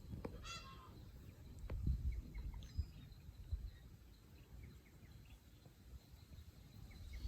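Faint outdoor ambience: a short, raspy bird call about half a second in, then a few faint chirps, over a low rumble.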